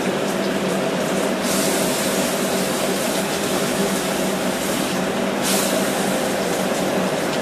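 Red-hot medium-carbon steel hammer head quenched in a bucket of water, the water boiling and hissing around the steel as steam rises. A sharper hiss comes from about a second and a half in to about five and a half seconds, over a steady hum.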